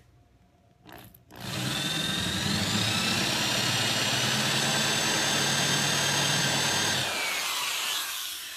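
Electric drill with a Forstner bit boring a shallow countersink into solid wood. The motor starts about a second and a half in and runs steadily with a whine that rises briefly as it comes up to speed. It stops about seven seconds in and winds down with a falling whine.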